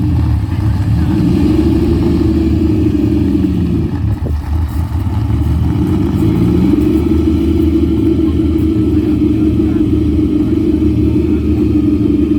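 Ferrari 250 GT California Spyder's 3.0-litre Colombo V12 running loud under way, its revs rising twice with a brief drop in level about four seconds in.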